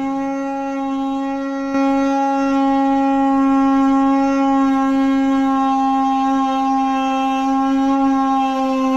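Homemade horn of a roughly 30 cm PVC pipe with a plastic funnel bell, blown by mouth and holding one steady note, getting louder about two seconds in.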